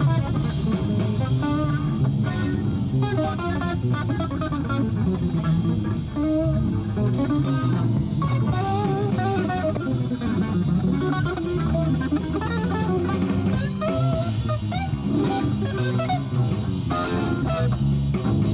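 Instrumental band music: a guitar playing a winding melodic line over bass and drums, continuing throughout.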